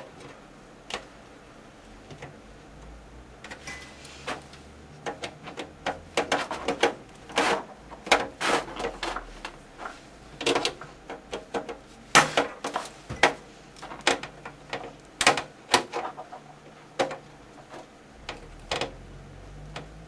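A case fan being screwed into a steel computer case: many irregular sharp clicks and taps from the screwdriver, the screws and the fan frame against the chassis, coming in quick clusters from a few seconds in.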